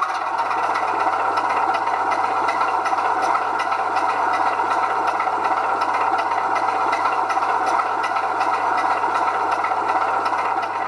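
Steady running of a model diesel locomotive on a 00 gauge DCC layout, an engine-like drone with a fine continuous rattle.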